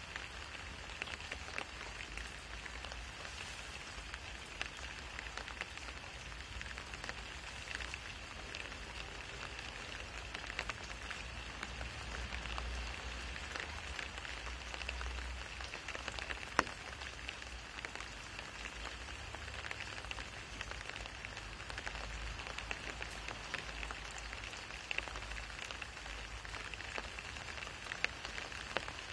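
Steady rain falling on wet, puddled asphalt: a dense even patter of drops, with one sharper drop tick about halfway through.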